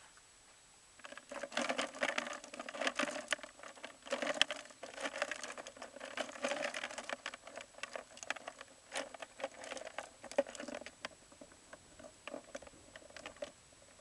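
Rustling and crackling: a dense run of many small clicks and crinkles that starts about a second in and thins out near the end.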